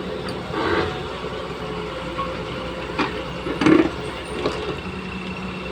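Heavy vehicle engine running steadily, with a few short louder sounds over it about half a second, three and almost four seconds in.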